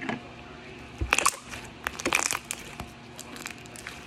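Clear beaded slime being stretched and squeezed by hand, making clusters of sharp crackles and pops, about one second in and again around two seconds in.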